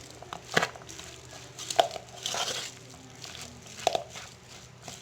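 A spoon stirring thick, lumpy corn fritter batter of sweet corn kernels and flour in a bowl, with squelching and rustling, and three sharp knocks of the spoon against the bowl.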